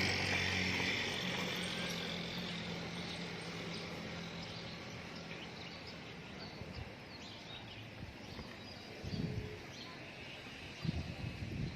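Quiet outdoor background with faint bird chirps and a steady hiss that fades over the first few seconds. A few soft knocks come about nine and eleven seconds in.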